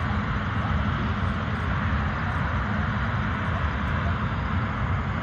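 Jet engines of a row of parked jets running on the runway, a steady rushing noise, with an uneven low rumble under it.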